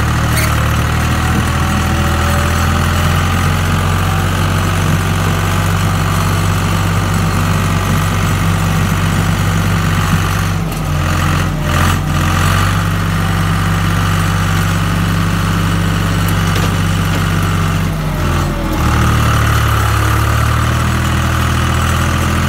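Case IH 395 tractor's diesel engine running steadily under a light load, its note changing briefly about ten seconds in and again near the end. Heavy rain hisses throughout.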